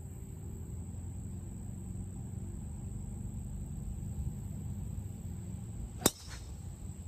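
A golf driver strikes a ball off the tee with one sharp crack about six seconds in. Under it is a steady low outdoor background and a faint constant high whine.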